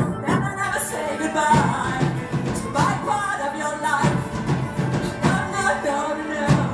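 Live band music in a Celtic jig style: singing over a flute melody and a steady drum beat.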